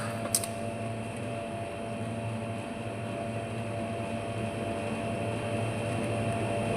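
Steady electric motor hum with a fixed low tone, and a single sharp click just after the start.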